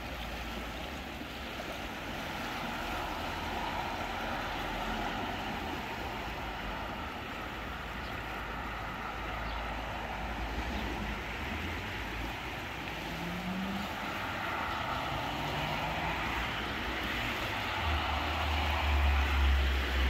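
A river in flood, high and muddy, rushing steadily through a stone-walled channel with churning whitewater. Wind buffets the microphone in low rumbles, strongest near the end.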